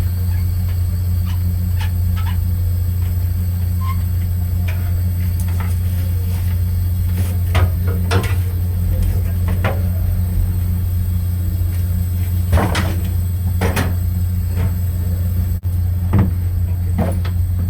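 A steady low machinery hum, with scattered knocks and clunks of parts and tools being handled, several of them in the second half.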